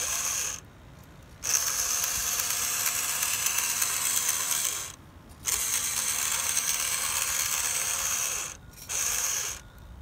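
Geared electric motor of a toy fire truck's ladder boom whirring as it raises and lowers the ladder in four runs: a short one, two of about three seconds each, and a short one near the end.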